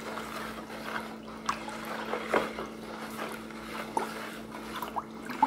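Water swishing in a plastic basin as it is stirred by hand with a plastic spoon to dissolve baking soda, with a few light clicks of the spoon against the basin.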